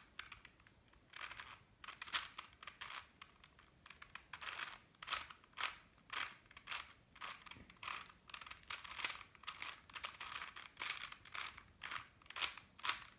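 4x4x4 Rubik's cube being turned by hand through the OLL parity algorithm: a quick, irregular run of plastic clicks and swishes as the layers rotate, starting about a second in.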